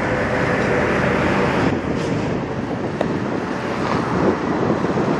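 Kenworth W900 semi truck's diesel engine running as it pulls a multi-axle trailer slowly past, with a steady rumble and tyre noise.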